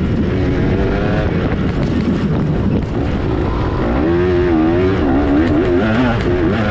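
Dirt bike engine running under hard throttle, its pitch climbing and dropping again and again as the throttle is worked, most plainly from about four seconds in.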